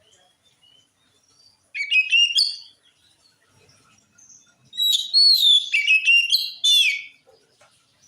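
Oriental magpie-robin singing: two bursts of loud whistled notes with quick rising and falling slurs, the first about a second long, the second longer at about two seconds.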